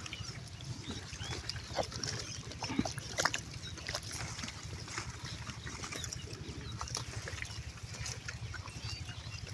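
Pigs making scattered wet clicking and smacking sounds over a steady low rumble.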